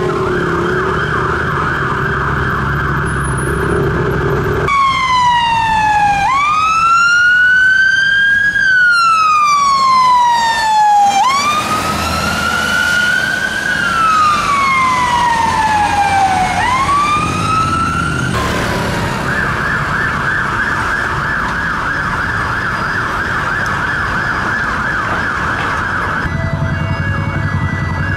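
UK fire engine sirens. A fast yelping siren is followed, after about five seconds, by a slow wail that rises and falls over about two and a half seconds each way, several times. The fast yelp returns about two-thirds of the way through, over the rumble of traffic and engines.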